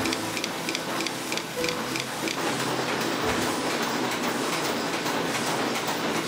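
Screw thread-rolling machine running, a rapid mechanical clatter of regular clicks about three a second that becomes denser and noisier about two seconds in.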